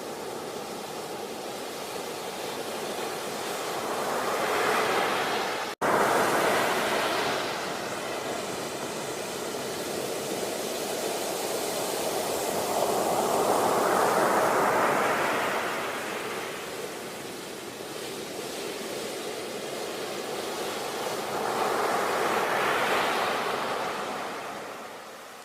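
Sea waves surging and washing onto the shore, swelling and falling away roughly every nine seconds. A momentary dropout about six seconds in.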